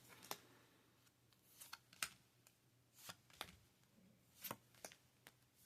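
Near silence with faint, scattered light clicks and taps of hands handling cards on a tray table, about ten in all at an uneven pace.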